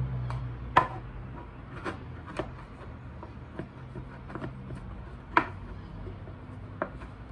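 Small objects being handled and set down on a desk: several sharp knocks and clicks, the loudest about a second in and again past five seconds, over soft rubbing from wiping the surface with alcohol.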